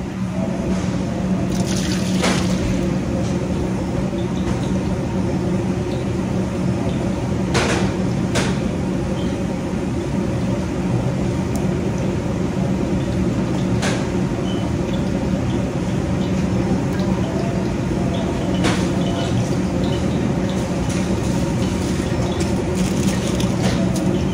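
Steady low roar and hum of commercial kitchen equipment around a large stainless steel stockpot heating on its burner, with a few scattered sharp clicks.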